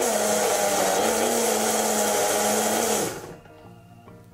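Small personal blender running steadily as it purées chopped vegetables with water, its motor whirring evenly, then winding down and stopping about three seconds in.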